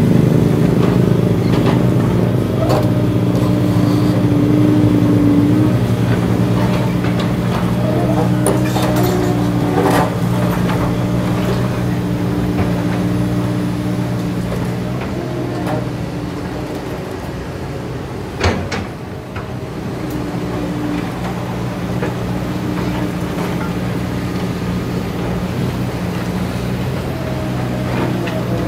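Kobelco SK200 hydraulic excavator's diesel engine running steadily under working load as it digs and swings. Occasional knocks stand out over the engine, the loudest a single sharp knock about two-thirds of the way through.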